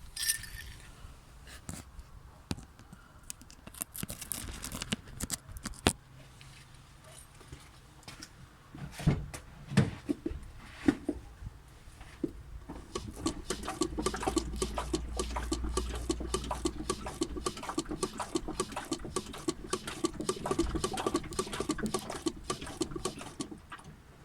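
Suspension of a 2013 Hyundai Elantra knocking and squeaking: scattered sharp knocks at first, then a fast, dense run of repeated knocks over a low rumble for the last ten seconds or so. The sounds are the chassis fault the owner is trying to show.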